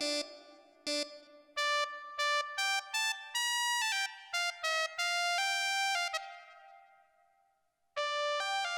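Keyboard synthesizer playing a Turkish folk-style sound patch: a melodic run of separate, bright single notes that dies away about seven seconds in, with a new phrase starting a second later.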